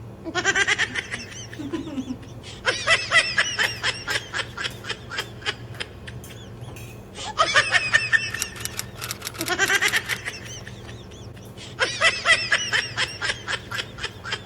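A person laughing hard in about five bouts, each a quick run of pulsed, high-pitched laughs with short pauses between them.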